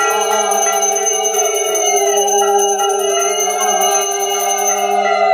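A puja hand bell rung continuously in quick, even strokes, with a held pitched drone underneath that shifts pitch a few times.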